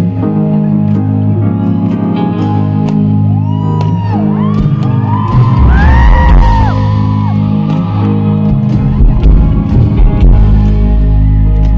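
A live band plays an instrumental passage through a festival PA: electric guitars, keyboards, bass and drums. A deeper bass line comes in about halfway, and a few high gliding notes rise and fall over the music in the middle.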